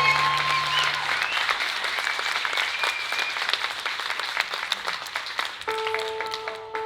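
Audience applauding as a piece of live music ends. New music with steady, ringing repeated notes starts near the end.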